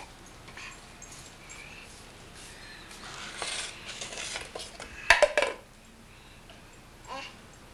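Cups and a mug clattering and knocking together as a toddler pulls them off a cabinet shelf, with a rattling stretch followed by a quick run of loud knocks about five seconds in.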